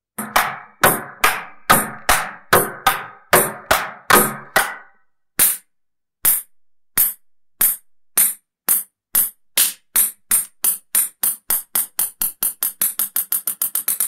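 Table tennis ball knocked back and forth about eleven times at an even pace, then, after a short pause, bouncing on its own, the clicks coming faster and faster as it settles.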